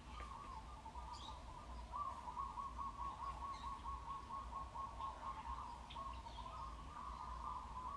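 Birds chirping: a continuous rapid trill with scattered short higher chirps over it.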